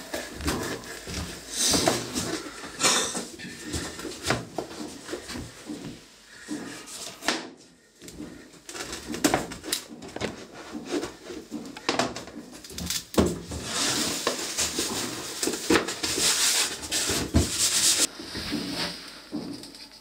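A large kitchen knife cutting raw meat on the bone against a wooden board: irregular knocks of the blade on the wood, with scraping and slicing, and a brief pause about halfway through.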